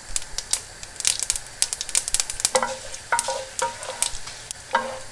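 Dried red chillies, mustard seeds and fenugreek sizzling in hot coconut oil in a clay pot, with many sharp little pops and crackles. A wooden spatula stirs them, scraping the pot in a few short strokes in the second half.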